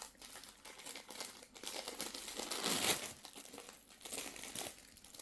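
Packaging crinkling and rustling as it is handled by hand, loudest about three seconds in.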